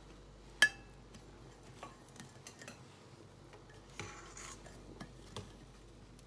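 A sharp clink against a glass bowl with a brief ring about half a second in, then a few lighter taps and a short scraping rustle of a hand working quark balls through toasted crumbs.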